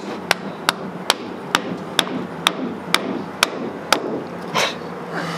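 A mallet striking a wooden block about ten times in a steady rhythm, roughly two sharp knocks a second, stopping about four seconds in. The block is being driven against the edge of a cured epoxy resin pour to knock it loose from its mold.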